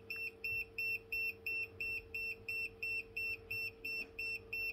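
Wiha 43797 non-contact voltage tester beeping about four times a second, short high beeps, as it detects AC voltage on the live socket. A faint steady hum runs underneath.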